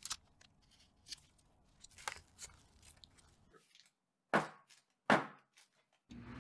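Light scraping and ticking of a plastic bench scraper smoothing brownie batter in a paper-lined baking pan, then, after a brief silence, two short, loud knocks a little under a second apart as the pan is handled.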